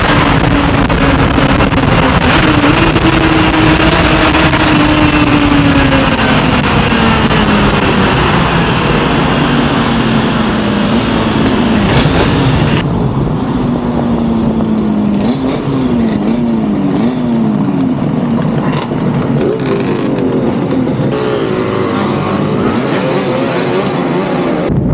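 Suzuki RG500 Gamma's two-stroke square-four engine heard on board, revving up and down through the gears. The first half echoes inside a road tunnel; after about thirteen seconds the note is drier, rising and falling in quick steps with each gear change.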